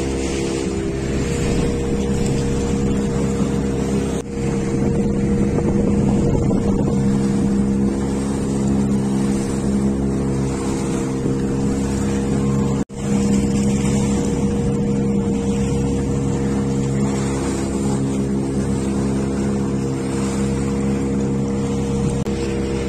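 Motorboat engine running at a steady pitch as the boat moves across the water, with the rush of water and wind against the hull. The sound breaks off for an instant about 13 seconds in.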